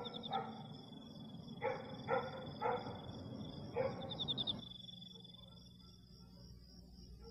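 A dog barking about five times in short, separate barks over the first four seconds, against a thin, steady high insect-like trill; after that only a faint low hum remains.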